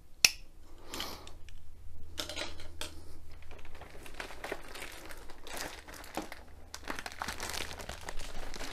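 A sharp click just after the start, then inflated plastic air-column cushioning crinkling and rustling as it is handled and lifted.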